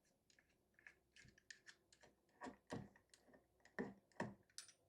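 Faint, irregular clicks and taps of a small screwdriver working a screw on a metal SSD enclosure.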